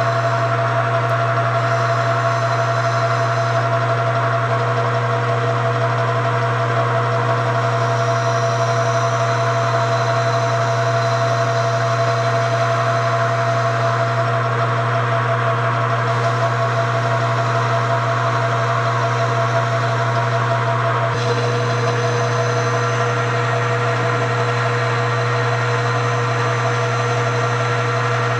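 Metal lathe running steadily while a taper is turned on a metal bar, with a constant motor and gear hum and a few steady whining tones above it.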